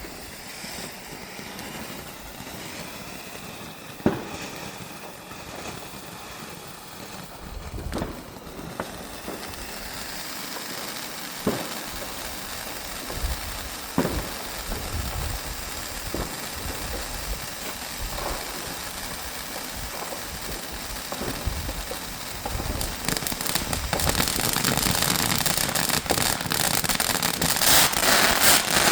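Two Weco Yin & Yang fireworks burning together: a continuous hiss and crackle with a sharp bang every few seconds. It thickens into dense crackling near the end, then cuts off suddenly.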